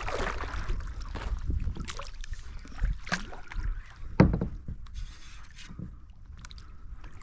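Scattered knocks and rubbing over a low rumble, with one sharper thump about four seconds in; the sounds of handling gear while fishing from a small boat.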